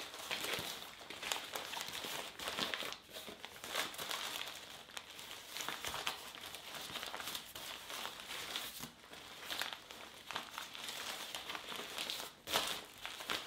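Newspaper crinkling and rustling as it is folded and pressed tightly around a bundle of fresh vegetables, in irregular crackles with short pauses between handfuls.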